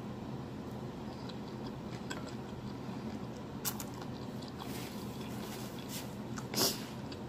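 Close-miked chewing and wet mouth smacking of someone eating sauced fried chicken, over a steady low hum. A sharp click a little past halfway, and a brief louder swish near the end as a paper napkin wipes the mouth.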